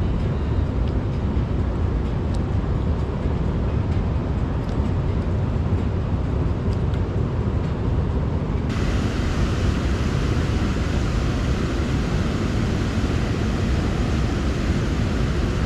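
Steady low rushing noise of water pouring below a spillway, with wind on the microphone; about nine seconds in the hiss abruptly turns brighter and louder.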